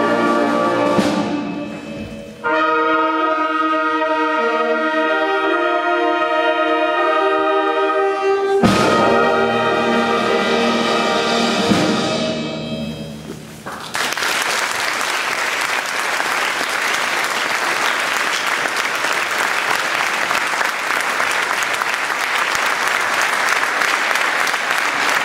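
Concert wind band playing the closing bars of a piece as long held chords of brass and woodwinds, which swell and then die away about halfway through. The audience then breaks into steady applause.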